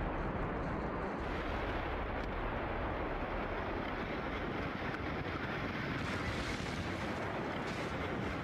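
A large gunpowder explosion blowing a building apart: a long, steady rushing rumble with no separate bangs, turning hissier about six seconds in.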